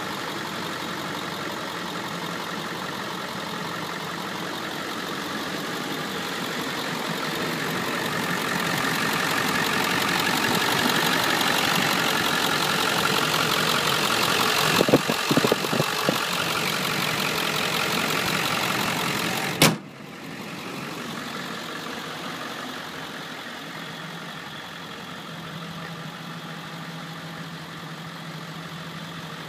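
Ford 7.3L Powerstroke V8 turbo diesel idling steadily, growing louder over the first dozen seconds. A few knocks come about halfway through, then a sharp click about two-thirds of the way in, after which the engine sounds quieter.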